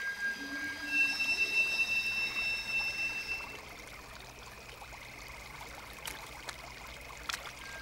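Shallow water trickling, with high steady ringing tones over it that cut off about three and a half seconds in. Two faint clicks come near the end.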